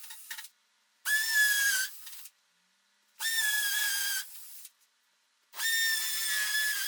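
Small electric power-tool motor whining in three short runs of about a second each. Each run jumps up in pitch as it starts, holds, then drops to a quieter tail as it stops.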